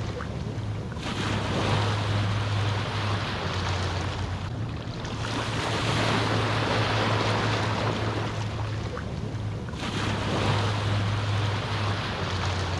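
Small ocean waves washing ashore on a calm sea, each wash swelling and falling away about every four to five seconds, over a steady low hum.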